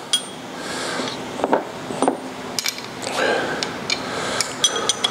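Steel hand tools being handled, irregular metal-on-metal clicks and knocks of wrenches and sockets, with a few sharp ringing clinks near the end.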